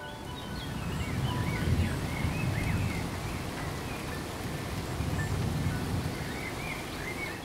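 Steady rain pattering into a puddle, with high chirps over it.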